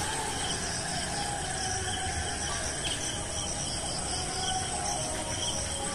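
Crickets chirring steadily, several high trills overlapping at different pitches.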